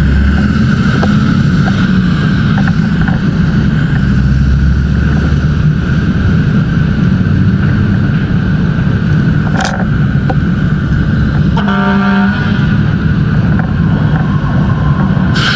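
A fire engine's engine running loudly and steadily, with a short pitched toot about twelve seconds in and two sharp clicks.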